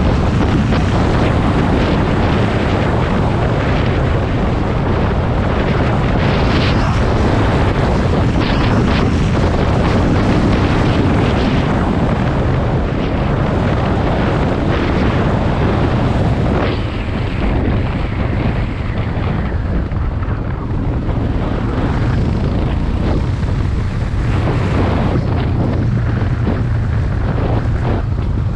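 Motorcycle riding along with its engine running under heavy wind buffeting on the microphone. The sound stays steady and loud, easing slightly a little past halfway.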